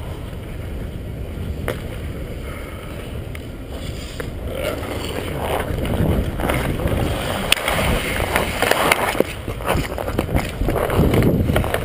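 Ice hockey skates gliding and scraping on rink ice, with a steady rumble of wind over the helmet-mounted camera's microphone as the wearer skates. In the second half the scraping gets louder and sharp clacks of sticks and puck come through.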